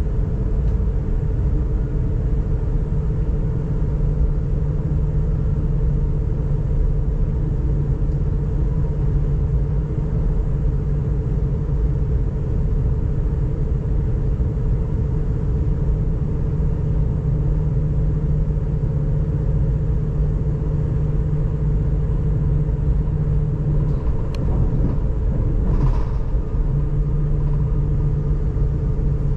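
Electric S-Bahn train running at speed, heard from inside the passenger car: a steady low rumble of wheels on the rails with a constant hum from the drive. Near the end the lower part of the hum briefly drops away and comes back.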